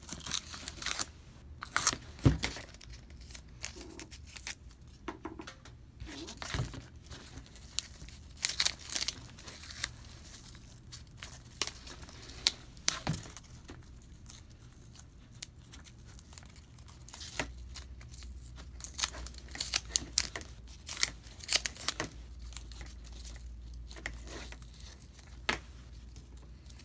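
Blue masking tape being peeled off faux-leather straps in short, irregular rips, with crinkling as the loose tape is handled. The tape sticks to itself more than to the strap.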